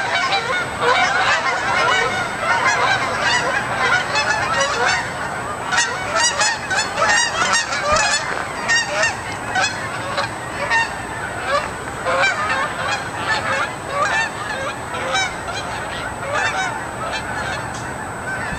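A large flock of geese flying over, honking continuously with many overlapping calls.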